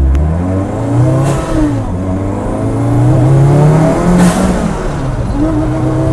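Kimera EVO37's turbocharged and supercharged four-cylinder engine accelerating through the gears, its pitch climbing and then dropping back at each change, with a short sharp burst at two of the changes, about one and four seconds in.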